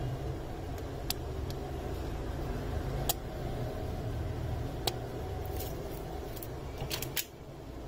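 Steady low rumble of street traffic and stall background noise, broken by a few sharp clicks or taps, two of them close together near the end.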